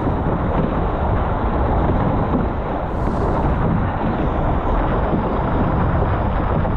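Steady wind rumble buffeting the onboard camera's microphone, mixed with water rushing along a Formula 18 catamaran's hull as it sails at speed.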